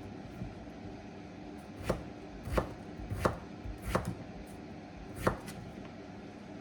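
Kitchen knife chopping on a cutting board: five slow strokes, roughly two-thirds of a second apart, over a steady low hum.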